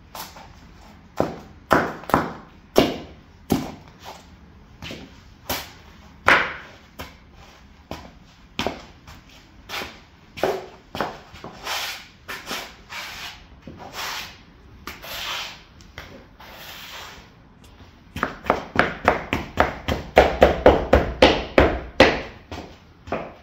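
Stiletto heels of leather high-heel boots clicking on a tile floor and crunching a crumbly pastry into crumbs underfoot, with a fast run of stamps and grinding crunches near the end.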